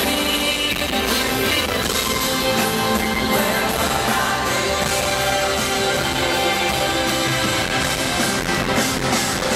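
Live pop concert music with singing over the band, recorded from inside the arena audience. It plays steady and loud throughout.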